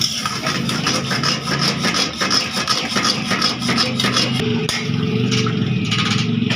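Metal scraping and clattering, typical of a spatula working in a karahi, over a steady engine-like hum. The hum grows a little stronger about four and a half seconds in.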